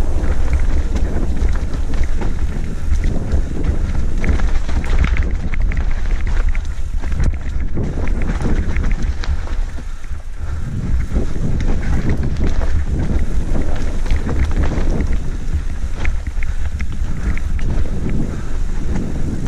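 Wind buffeting a helmet-mounted camera's microphone over the rumble of mountain bike tyres on a rough dirt trail, with frequent small rattles and knocks from the bike over the bumps.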